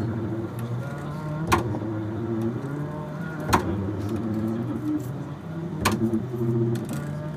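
Double bass played with sustained low droning notes that step to new pitches every second or so, with a sharp knock about every two seconds.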